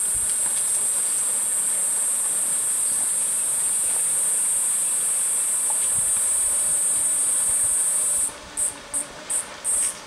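Loud, steady high-pitched buzz of a cicada chorus, which stutters off and on several times near the end.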